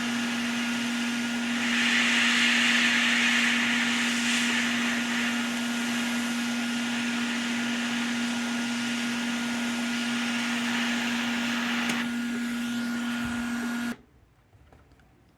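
Hot air rework station blowing steadily with a strong hum under the rush of air, louder for a few seconds early on, then switched off suddenly near the end.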